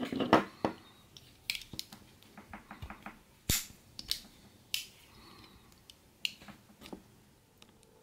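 Stainless-steel Leatherman Bond multitool being handled and its handles swung open and shut, giving a series of sharp metal clicks and clacks. The loudest clatter comes just after the start, and there is a single sharp click about three and a half seconds in.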